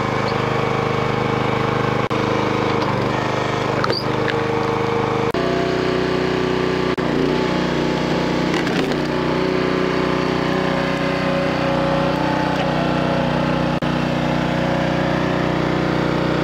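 Predator 212cc single-cylinder engine running steadily, driving a hydraulic log splitter, its note shifting lower about five seconds in. The wedge forces through a log, with wood cracking and splintering a few times as it splits.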